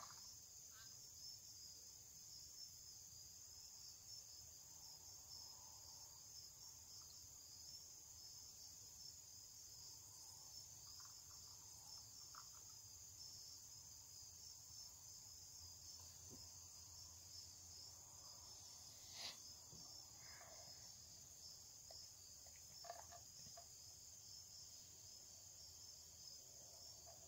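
Faint steady chirring of crickets, with near silence otherwise and a couple of faint small clicks.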